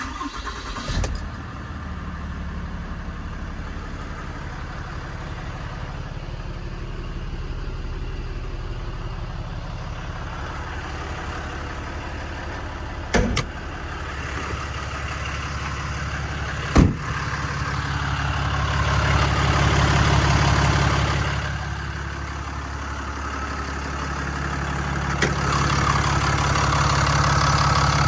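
Ram 5500's 6.7 Cummins diesel engine starting, then idling steadily, its note swelling twice in the later part. Two sharp clicks stand out partway through.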